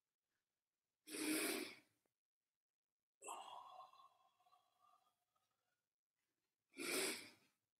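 A man breathing hard during forward bends: two strong breaths out, about a second in and near the end, with a fainter, longer breath between them as he straightens up.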